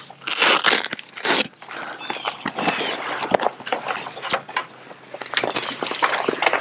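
Velcro straps ripping apart and the awning's fabric cover rustling as it is pulled open, in a string of rasping bursts with scattered clicks.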